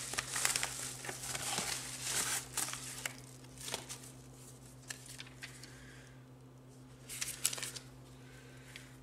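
Crinkling and rustling of a shipping envelope being handled and opened, dense for the first three seconds, then a few short rustles.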